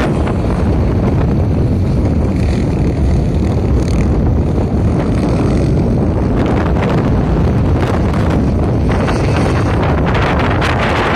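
Wind buffeting the phone's microphone in a steady low rumble.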